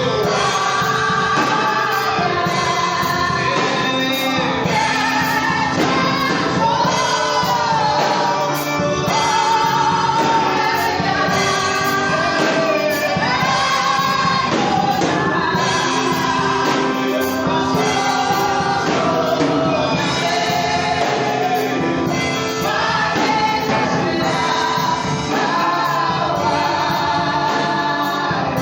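Gospel music: a choir singing with band accompaniment over a steady beat.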